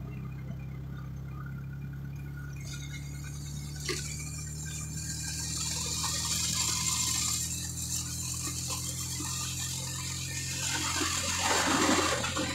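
Motorcycle engine running steadily at cruising speed, with wind and road rush that grows louder about three seconds in.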